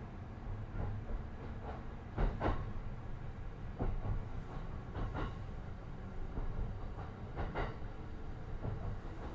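JR East E235 series 1000 electric train running, heard from inside the Green car: a steady low rumble with sharp knocks from the wheels on the track every second or so, the loudest about two seconds in.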